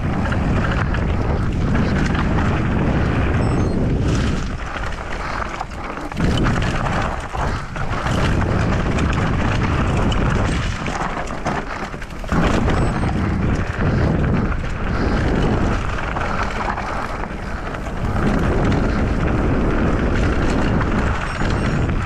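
Wind buffeting the GoPro microphone while an electric mountain bike descends fast over loose, rocky dirt: tyres crunching on gravel and the bike rattling over the rough ground. The noise rises and falls with speed and terrain.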